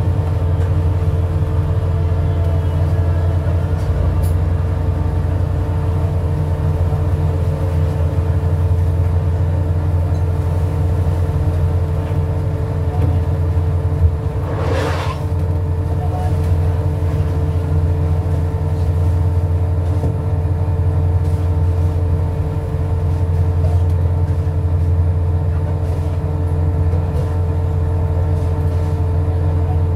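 A fishing boat's engine running steadily: a constant low drone with a steady hum above it. About halfway through, a brief rushing burst rises over it and fades within a second.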